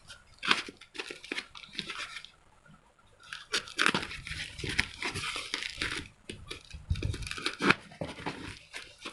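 Plastic parcel packaging being handled and torn open, crinkling and tearing in irregular bursts with small clicks, densest from about three and a half to six seconds in.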